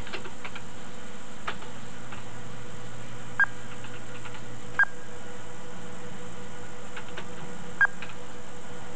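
Electronic sound effects: a low steady drone that steps up in pitch a little past halfway, with three short high beeps of the same pitch spread across it.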